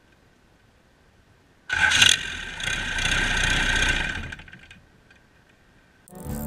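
Cummins 4BT 3.9 L turbocharged four-cylinder diesel running on a test stand, with a steady high whine over the engine noise. It comes in suddenly about two seconds in, after near silence, and fades out about two seconds later. Guitar music starts near the end.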